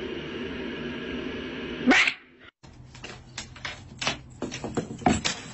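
Domestic cat sounds across two short clips: a steady low sound ending in a sudden loud cry about two seconds in, then, after a brief break, a string of knocks and taps as a cat leaps at a wall.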